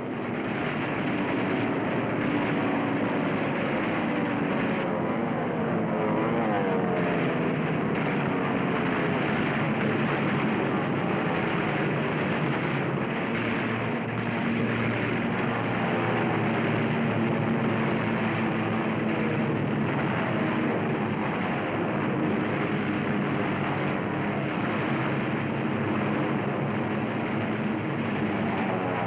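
Propeller-driven warplane engines droning steadily, the pitch sliding up and down in passes about five to eight seconds in and again near the end.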